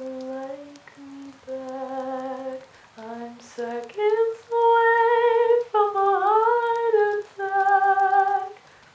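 Unaccompanied female voice singing a wordless melody, like humming. It moves through a few low notes, then climbs to higher, louder held notes with a slight vibrato, and stops shortly before the end.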